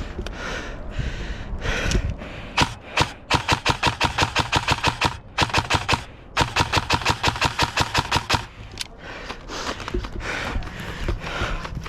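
Airsoft rifle firing on full auto in two bursts of about two seconds each, roughly eight shots a second, after two single shots. Rustling and shuffling noise comes before and after the bursts.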